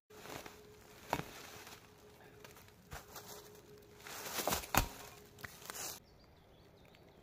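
A rusty iron plate handled over dry grass and leaves: rustling with a few knocks, the loudest pair about four and a half seconds in as the metal is set down or knocked against the ground.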